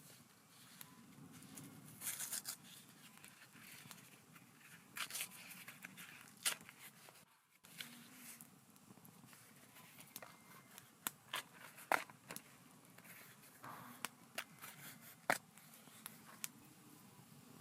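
Paper rustling and crinkling as it is handled, with scattered sharp snaps of a crackling wood campfire, loudest from about the middle on.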